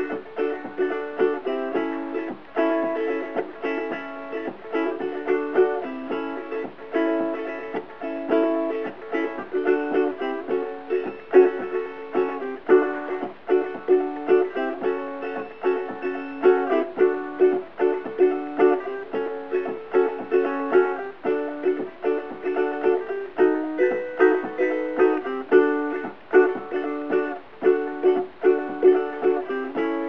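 Covered Bridge tenor ukulele with a redwood top and myrtle body, strummed in a steady, rhythmic classic-rock pattern of chords.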